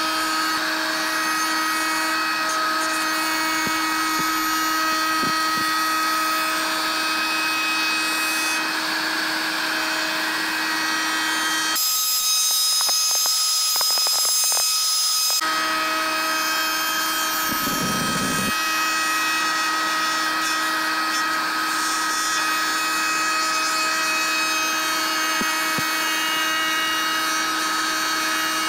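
Electric router running at full speed with a steady high whine while its bearing-guided bit trims a wooden board fed by hand. For a few seconds near the middle the hum gives way to a brighter hiss.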